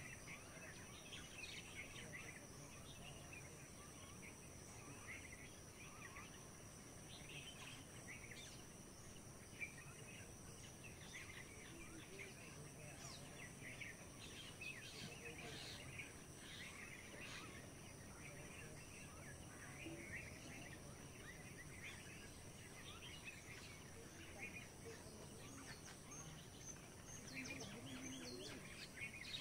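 Quiet rural outdoor ambience: small birds chirping and twittering in many short calls, over a steady high-pitched insect drone.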